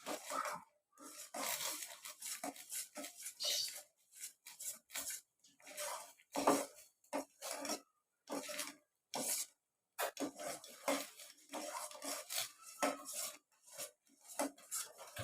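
Spoon scraping and clinking against a cooking pan in short, irregular strokes, stirring ginger juice and palm sugar as it cooks down.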